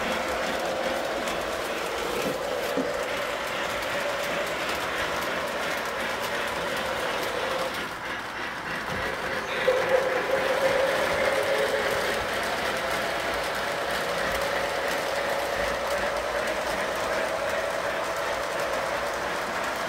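Electric model trains running around a tabletop track layout: a steady motor whine, drifting slightly in pitch, over the rattle of wheels on the rails. A few louder knocks come about halfway through.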